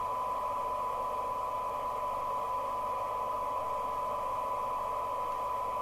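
Rotel RVC240 FM CB radio receiving a weak test signal during alignment: a steady test tone over an even receiver hiss, the radio's recovered audio.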